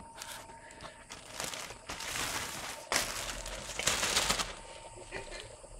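Clear plastic sheeting crinkling and rustling as cats play in it, in several bursts, the loudest about four seconds in.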